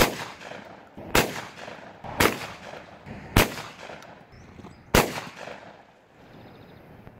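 Shotgun fired five times in quick succession, about a second apart with a slightly longer gap before the last shot, each report followed by a rolling echo.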